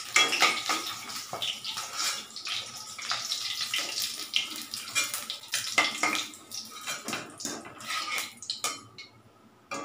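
Boiled eggs sizzling in hot oil in a kadai, with repeated clinks and scrapes of a spoon against the pan. The sizzle fades near the end.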